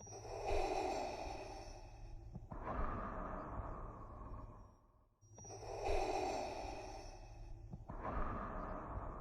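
Darth Vader's respirator breathing, the sound effect made by breathing through a scuba regulator. A slow mechanical inhale then exhale, twice over, about one breath every five seconds, with a short pause before each inhale.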